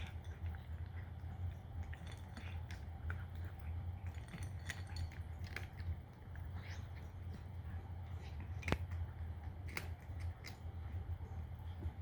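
Cat crunching dry kibble: irregular crisp crunches and small clicks, with one sharper click about nine seconds in, over a steady low hum.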